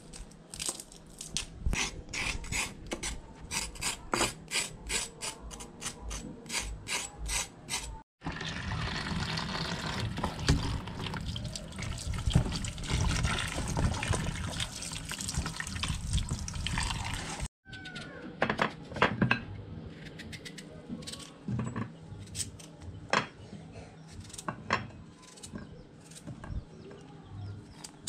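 A knife cutting garlic with quick, even taps at about three a second. Then, from about 8 seconds in, tap water runs steadily onto vegetables in a plastic basin in a sink, the loudest part. From about 17 seconds in, there are scattered clicks of a knife cutting pumpkin pieces against a plate.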